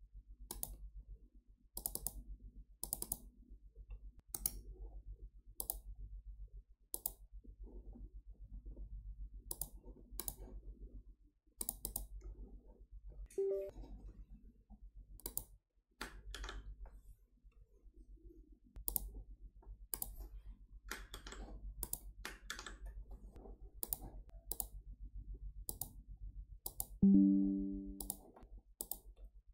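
Computer mouse clicking at irregular intervals over a low steady hum, with a brief tone about halfway through. Near the end comes a short, low Windows chime as the notification that the USB drive can be safely removed pops up.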